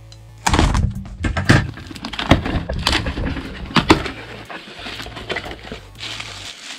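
Cardboard box being opened and unpacked by hand: a quick run of sharp tearing, crinkling and knocking sounds, settling into quieter rustling after about four seconds.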